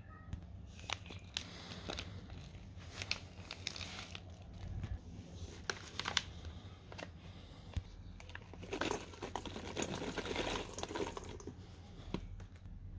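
Plastic food pouches and a dried-fish snack bag crinkling and rustling as they are handled, with scattered sharp clicks. A denser run of crinkling comes about nine to eleven seconds in, as the dried fish is shaken out of its bag into a steel bowl.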